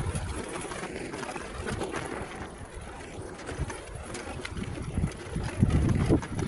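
Wind buffeting the microphone in gusting low rumbles, stronger near the end, with faint scattered crackles.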